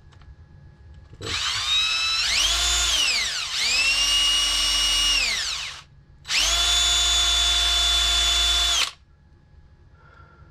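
Electric drill with a 9/32-inch bit boring into a plastic skeleton bird, run in two bursts: the first speeds up, dips briefly and winds down, the second runs at a steady pitch and stops sharply. The bit is dull and cuts poorly.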